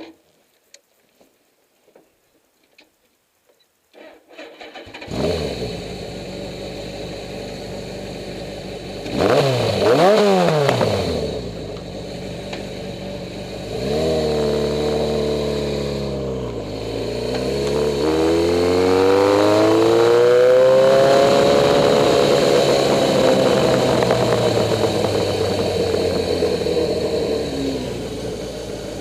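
A Suzuki GS850 air-cooled inline-four motorcycle engine starts after a few quiet seconds with light clicks, then idles. It is blipped once to a sharp rev and then ridden off, pulling away and revving up through the gears, with brief dips in pitch at each shift.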